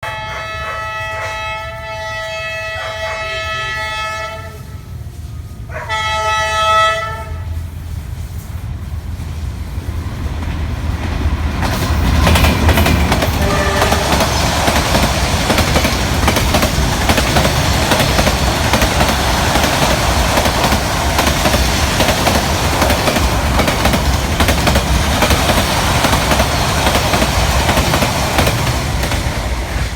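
Horn of a Vietnam Railways D19E diesel-electric locomotive sounding a chord: a long blast of about four seconds, then a shorter second blast. The train then runs past with a loud, steady rumble and wheel clatter on the rails.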